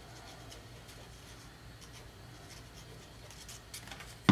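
Faint scratching of a fine-tip glue bottle's nozzle dragged along a cardstock strip as it lays a zigzag line of glue, ending in a sharp knock as it is set down.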